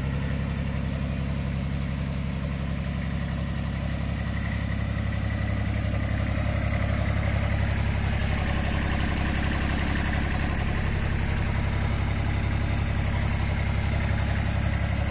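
Kubota RTV 1100's three-cylinder diesel engine idling steadily, a low, even rumble.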